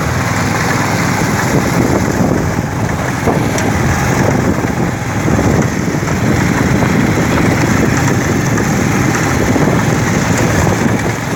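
Motorcycle running at speed, heard from on board, with steady wind noise rumbling on the microphone.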